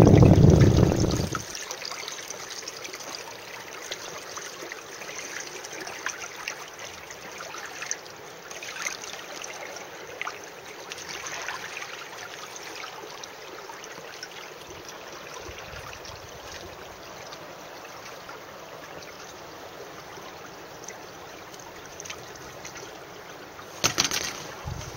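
Water trickling and lapping along the hulls of a sailing catamaran under way, a steady gentle wash with small splashes. Wind buffets the microphone at the start and briefly again near the end.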